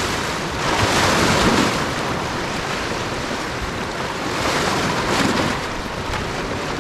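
Small waves washing and splashing against a rocky shoreline, swelling twice, with wind buffeting the microphone.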